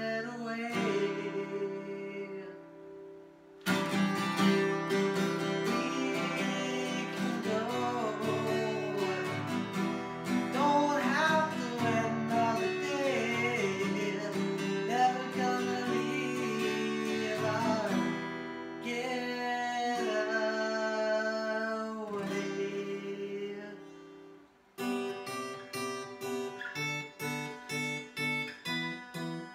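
A man singing while strumming an acoustic guitar. The playing drops out briefly about three seconds in, and near the end it settles into an even strum of about two strokes a second.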